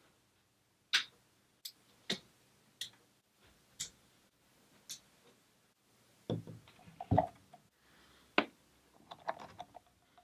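Sharp single clicks about a second apart, then a cluster of knocks and thuds from handling a Prusa i3 MK2 3D printer and its filament spool, with another sharp click and a few lighter taps near the end.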